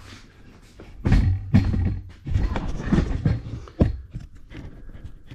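A string of knocks and thumps, about five over three seconds, over a heavy low rumble, starting about a second in.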